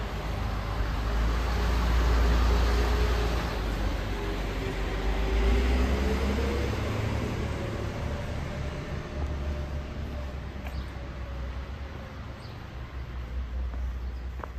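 Low rumble of a passing vehicle, swelling about two seconds in and again around six seconds before fading. A faint engine tone dips and then rises in pitch over it.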